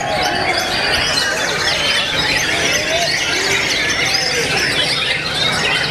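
Many caged white-rumped shamas singing at once: a dense, unbroken tangle of overlapping high whistles, trills and chirps, with a few lower sliding notes among them.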